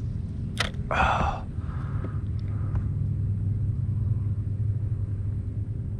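Steady low rumble of wind on the microphone, with a sharp click and a short breathy puff about a second in.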